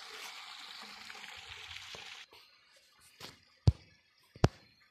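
A steady rushing hiss that cuts off about two seconds in. In the near silence after it, a faint tap, then two sharp knocks about three-quarters of a second apart.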